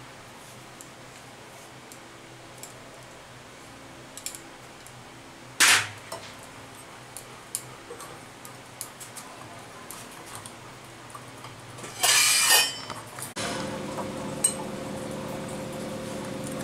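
Wire whisk stirring dry gram flour in a ceramic bowl, the wires ticking and clinking against the bowl's side, with a sharp clink about six seconds in and a louder ringing clatter about twelve seconds in. A steady hum starts shortly after.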